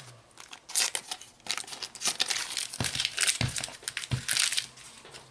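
A foil-paper Panini sticker packet being torn open and crinkled by hand, a run of irregular crackles and short tearing rasps that die down near the end.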